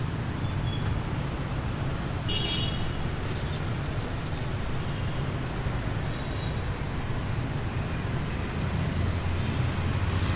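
City street traffic, mostly motorbikes and cars, running as a steady low rumble. A brief high-pitched sound comes about two seconds in, and the rumble swells near the end as a motor scooter passes close.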